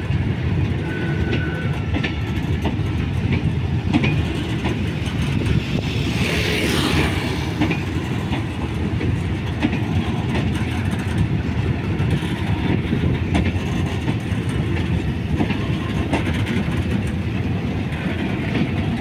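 Loaded freight flatcars rolling past on the track: a steady low rumble of steel wheels on rail with scattered clicks over rail joints, and a brief rush of higher-pitched noise about six seconds in.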